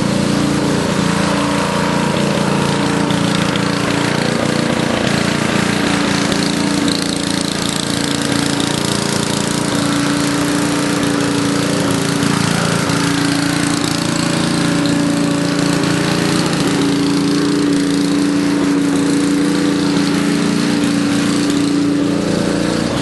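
A motor running steadily at a constant pitch, loud and unbroken, with a mechanical hum and a hiss over it.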